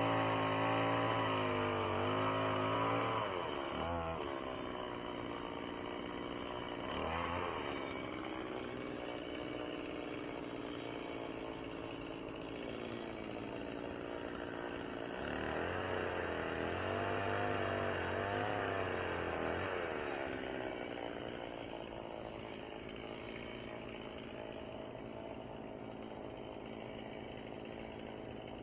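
Two-stroke chainsaw engine running, rising and falling in pitch as it is revved several times, then fading toward the end.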